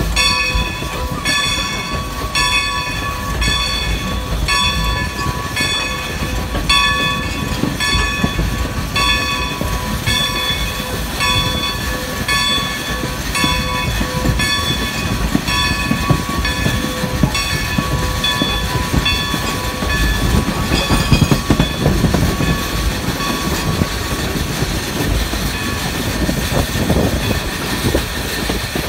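Steam locomotive No. 90, a 2-10-0 Decapod, running, heard from beside the cab: a ringing tone struck about once a second for the first twenty seconds or so, then fading out, over the steady low rumble of the moving engine, which swells a little near the end.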